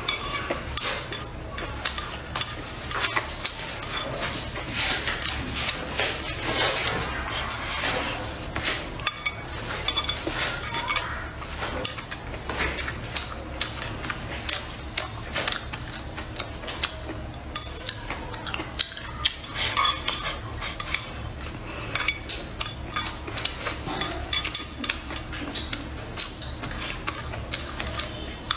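Chopsticks clicking and scraping against a ceramic bowl as fried rice is scooped up, many small irregular taps, with close-up chewing.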